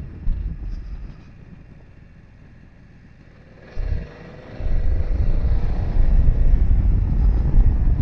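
Ride-along sound of a BMW F900XR parallel-twin motorcycle: engine and wind rumble on the rider's microphone. It is quieter for a couple of seconds after the first second, then louder wind buffeting and a faint engine note from about halfway.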